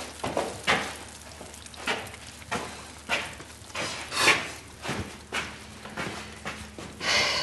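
Footsteps and the rustle of clothing as two people move and handle a raincoat: a string of short scuffs about every half second, with a longer hissing rustle near the end.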